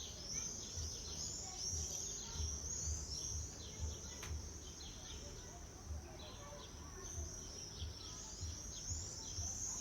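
A flock of small songbirds chirping continuously, with many short, high chirps overlapping one another, over an intermittent low rumble.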